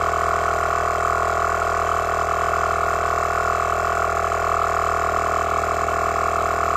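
Heyner Big Air 40L Pro 12 V portable air compressor running steadily, an even, unbroken machine sound with no change in pitch or level.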